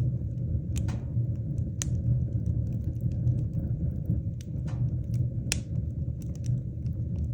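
Wood fire burning in a fireplace: a steady low rumble of the flames with irregular sharp crackles and pops from the burning logs, a few louder snaps among them.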